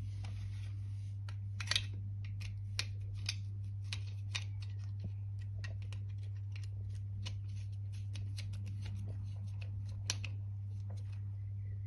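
Irregular small clicks and ticks of wires and a dimmer switch being handled as two wires are worked into the switch's common terminal, a few sharper clicks standing out, over a steady low hum.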